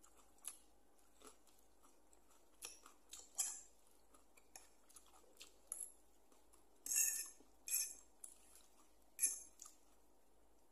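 Close-up mouth sounds of someone eating noodles: chewing and slurping in short, irregular bursts, the loudest cluster about seven seconds in.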